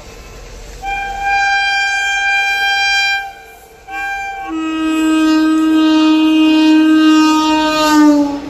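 WAP-4 electric locomotive's horn sounding three times as the express approaches at speed: a higher-pitched blast of about two seconds, a short blast, then a long lower-pitched blast whose pitch drops as the locomotive passes. The train's running noise sits underneath.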